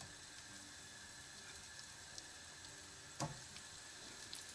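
Breadcrumbed chicken strips frying gently in shallow olive oil in a non-stick pan: a faint steady sizzle with small crackles. A single knock sounds a little past three seconds in.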